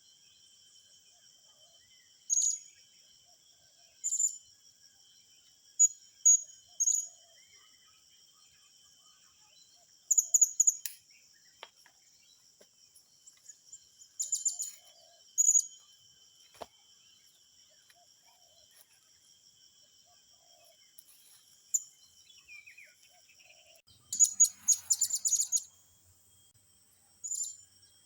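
Short, very high-pitched bird chirps in scattered bursts, about a dozen of them, with a quick cluster near the end. Under them runs a steady, high-pitched insect drone.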